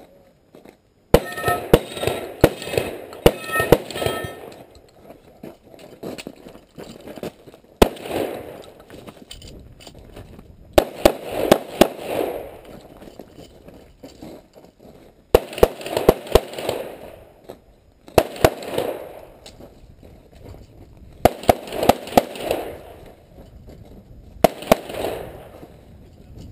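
Gunshots from a long gun: a rapid string of shots about a second in, then short groups of two to five shots every few seconds, each followed by a brief echo.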